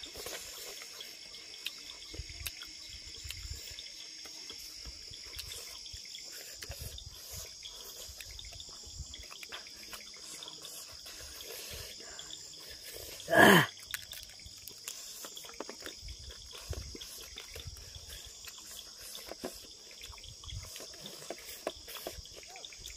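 Crickets and other night insects chirping steadily in a high band, with faint clicks and smacks of two people eating by hand from paper plates. About halfway through, one short loud sound sweeps quickly down in pitch.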